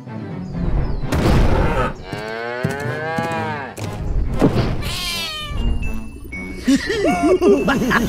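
Cartoon cow mooing: one long moo that rises and falls in pitch, with other animal calls around it, over background music. Near the end comes a run of quick rising-and-falling tones.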